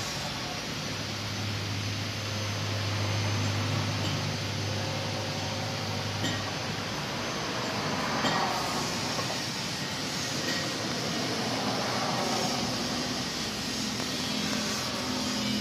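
Road traffic: vehicle engines running and passing, with a steady low engine hum in the first half and a vehicle going by about eight seconds in.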